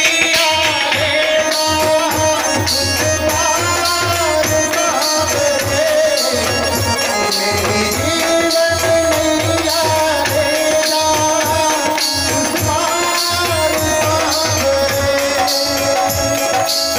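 A man singing an Indian folk song into a microphone with tabla accompaniment. The long, wavering sung notes ride over a steady beat.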